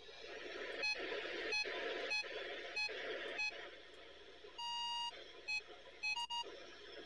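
Radio static hissing steadily, with a receiver's short electronic beeps about every 0.6 s, a longer beep about five seconds in, then a few quicker beeps.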